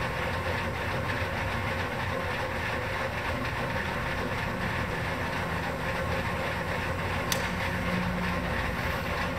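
Hardinge Model HC second operation lathe running with its spindle turning and the carriage under power feed from the variable-speed feed motor: a steady mechanical hum. A single sharp click about seven seconds in.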